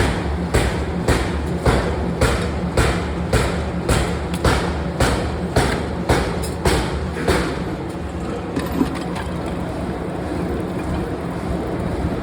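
Power press striking metal in a steady rhythm, about two strokes a second, over a constant machine hum. The strokes stop about two-thirds of the way through, leaving only the hum.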